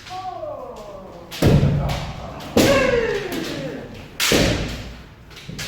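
Kendo strikes: three sharp impacts of shinai and stamping footwork, each with a loud kiai yell that falls in pitch, about a second and a half apart. A fainter falling yell comes at the very start.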